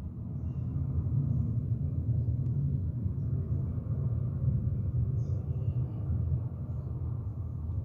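Jet airliner engines rumbling steadily with a deep, low roar that starts abruptly and holds level throughout.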